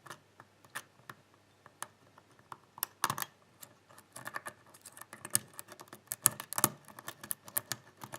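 Lock pick clicking and scraping against the pins inside a pin tumbler lock fitted with spool security pins: small sharp metallic clicks, scattered at first, then coming quickly one after another from about four seconds in.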